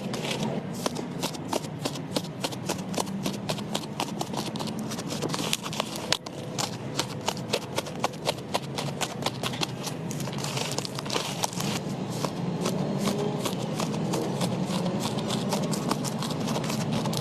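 Slime being squeezed and poked by hand, giving rapid, irregular clicks and pops several times a second.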